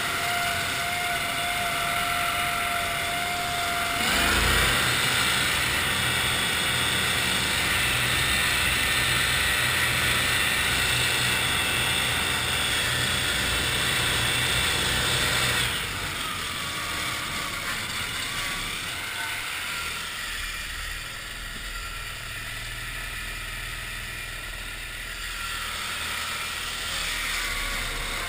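Cushman Trackster tracked utility vehicle driving across a field, its engine running steadily under load. The engine revs up about four seconds in and eases back around sixteen seconds in.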